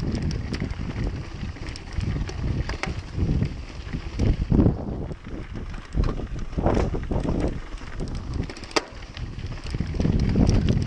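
Mountain bike ridden over a rough, stony track: wind rumbles unevenly on the microphone, with the tyres rolling over stones and many short clicks and rattles from the bike. One sharp tick stands out near the end.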